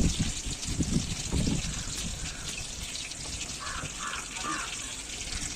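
Water running steadily from a tap with splashing, as when ingredients are washed under it, with a few low knocks in the first second and a half.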